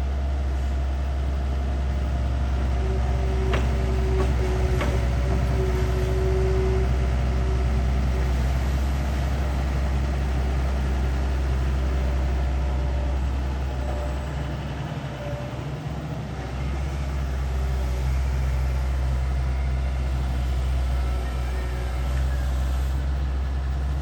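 IHI long-reach excavator's diesel engine running steadily as the machine works, with a higher whine that comes and goes over the deep engine hum. Two sharp clacks a few seconds in, and the engine note dips briefly about fifteen seconds in.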